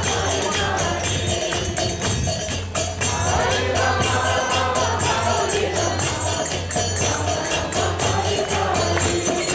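Devotional group chanting (kirtan): several voices singing together over metallic hand percussion that keeps a steady, even beat.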